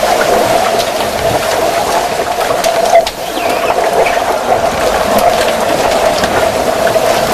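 Swimming pool heard underwater: a steady hum with hiss and scattered clicks and knocks, with one sharp knock about three seconds in.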